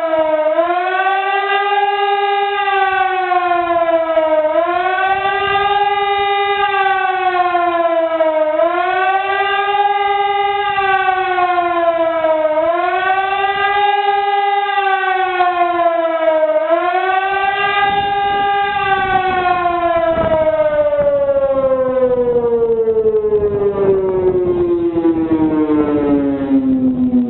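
EPS2400 electronic warning siren sounding the 'Warnung' alert: a loud wailing tone that swoops up and sags back down about every four seconds. About two-thirds of the way through it stops cycling and falls steadily in pitch as the signal winds down.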